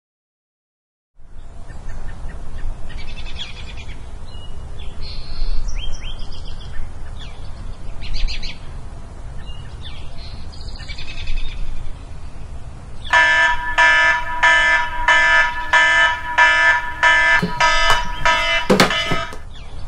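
Birds chirping over a quiet room background, then about two-thirds of the way in an alarm clock starts beeping, about two pulses a second. A few knocks come near the end.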